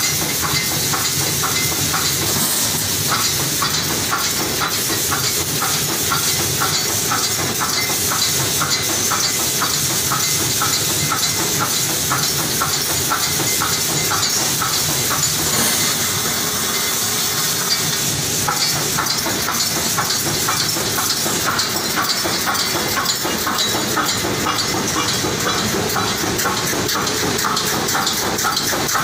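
Automatic pneumatic wire mesh welding machine running: a steady hiss of compressed air under a fast, regular clatter of the machine's working strokes.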